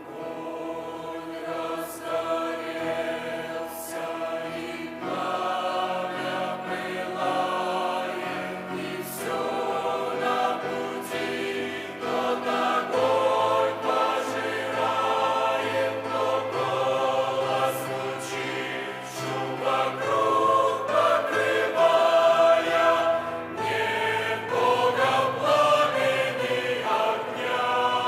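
Church choir singing in slow, sustained chords, getting louder about halfway through.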